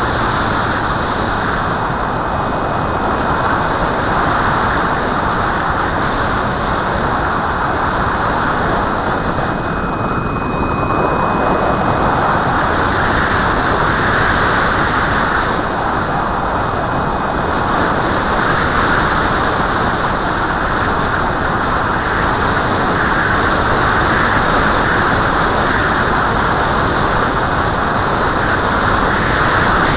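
Wind rushing over the microphone of a camera on a small aircraft in flight: a loud, steady roar that swells and eases every few seconds, with a faint steady high whine above it.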